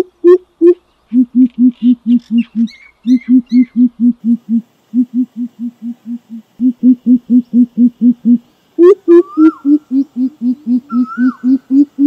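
Greater coucal (crow pheasant) calling: runs of deep, rapid hoots, about five a second, with short breaks between runs. The pitch drops to a lower series through the middle and rises again near the end. A faint rising whistled note from another bird sounds two or three times near the end.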